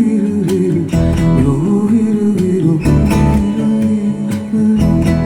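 Recorded music playing back through Dynaudio Heritage Special loudspeakers: acoustic guitar over bass and drum hits, in a gap between sung lines.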